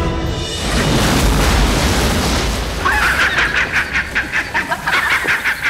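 A deep booming rumble lasting about two seconds, followed by a rapid, rhythmic cackling laugh.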